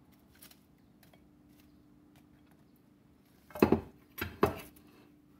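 Metal kitchen tongs and ceramic plates clinking: a few light clicks, then about three and a half seconds in, three loud clattering knocks close together as things are set down on the counter.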